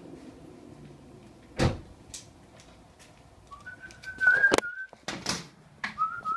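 A car door shutting with one thump, followed a couple of seconds later by a wavering high whistle that comes and goes, mixed with sharp knocks and handling noise.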